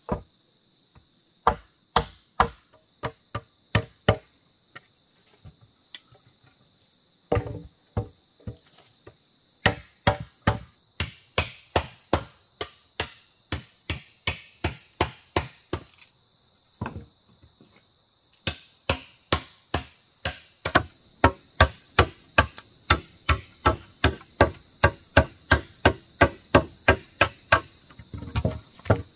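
A blade chopping into wood in quick, even strokes, about two to three a second, in runs broken by two short pauses. A steady insect drone runs behind it.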